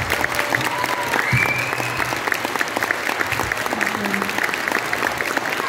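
Audience applauding steadily, a dense round of clapping at the end of a song.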